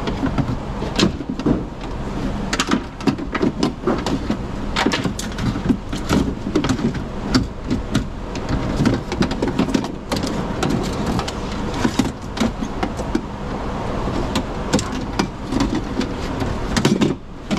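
A broken Chevrolet Volt power window regulator, with its metal rails, cables and motor, clattering and knocking against the steel inner door panel as it is worked out through the access hole. The knocks come at irregular intervals over a steady low hum.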